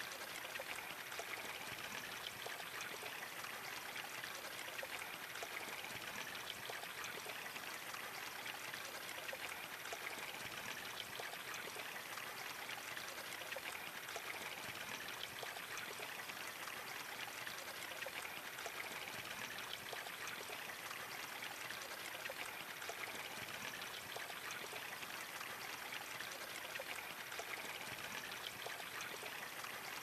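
Waterfall pouring over rock into a pool: a steady rush of splashing water, mostly hiss with little low rumble.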